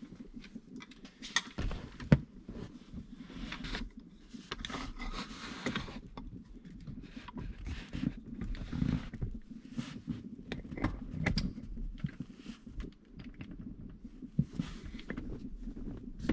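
A steering wheel brace being fitted in a car, giving irregular clicks, scrapes and rubbing as it is set against the seat and hooked onto the steering wheel rim, with one sharp click about two seconds in.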